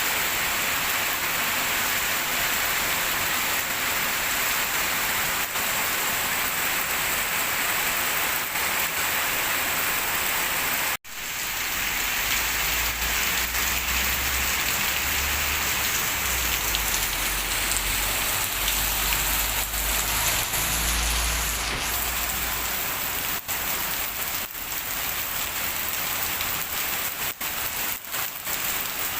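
Heavy rain falling steadily, an even hiss of many drops. It breaks off for an instant about a third of the way through, then comes back with a low rumble under it for several seconds, and a few distinct drop hits near the end.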